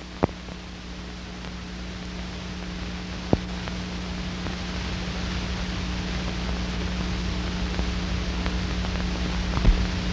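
Steady hiss and hum of an old film soundtrack, slowly growing louder, with a few sharp isolated clicks.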